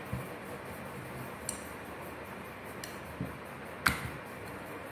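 Thin rolling pin rolling out dough on a round rolling board, with a few light clicks and knocks where the pin meets the board, the loudest about four seconds in, over a steady faint background hiss.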